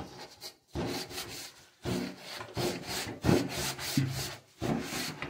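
Soapy scouring sponge scrubbing the slats of a metal window in back-and-forth strokes, about one a second, with short breaks between them.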